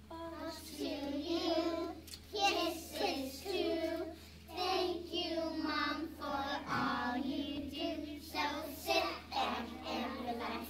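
A class of preschool children singing a song together in phrases with short breaks between them.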